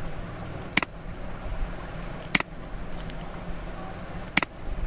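Three single computer-mouse clicks, spaced a second and a half to two seconds apart, over a steady low electrical hum and room hiss.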